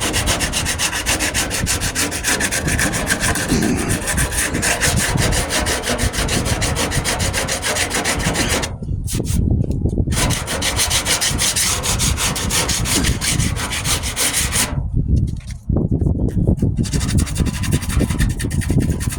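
Hardened Bondo body filler on a truck's wheel arch being shaped by hand with an abrasive tool: a rough, rapid rasping scrape that breaks off briefly twice, about nine and fifteen seconds in.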